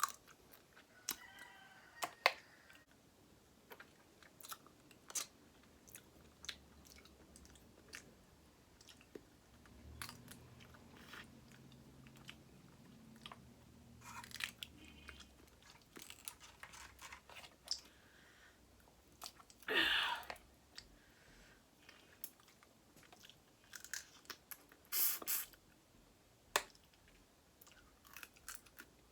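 Close-up mukbang eating sounds: a person chewing and biting into seafood-boil food, with scattered crunches and clicks and a few louder bursts about two-thirds of the way through and near the end.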